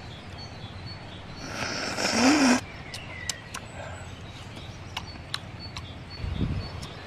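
A person eating a grilled mussel off a stick: a short, loud slurp-like sound about two seconds in, then scattered small clicks and smacks while chewing, with faint birdsong behind.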